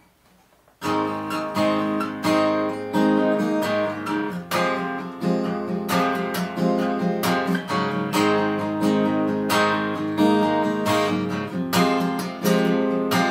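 Acoustic guitar strummed in a steady rhythm of chords, starting just under a second in: the instrumental intro before the singing comes in.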